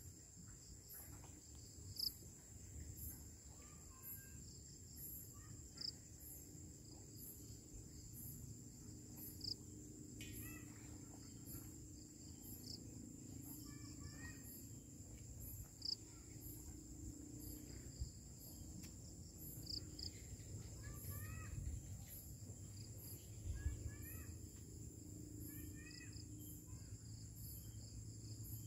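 Night insects calling: a steady high-pitched trill with crickets chirping in a regular rhythm, a little over once a second.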